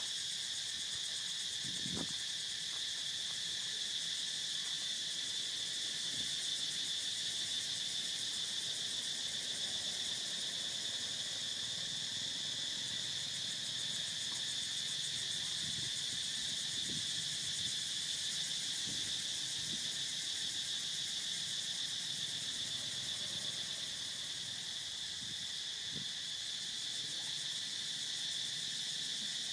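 Steady drone of an insect chorus, a continuous high-pitched buzz that holds the same level throughout, with a few faint soft knocks now and then.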